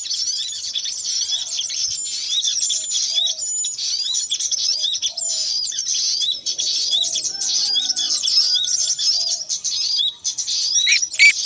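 Many small wild birds chirping together in a dense, continuous chorus of quick, high tweets and short whistled glides.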